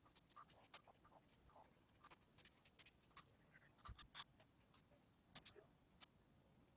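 Near silence broken by faint, irregular light clicks and taps, a little stronger twice about four seconds in.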